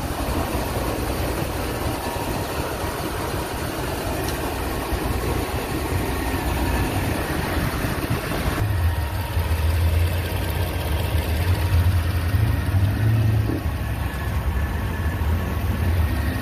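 Range Rover Sport's 4.2-litre supercharged V8 idling steadily, with engine flush circulating in the oil. About halfway through, the deep hum grows stronger and the hiss lighter.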